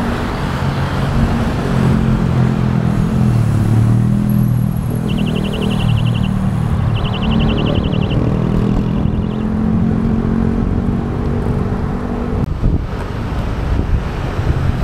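Road traffic heard from a moving bicycle: a steady hum of nearby car and motorcycle engines, with wind on the microphone. A rapid high-pitched ticking comes in two short runs, about five and seven seconds in.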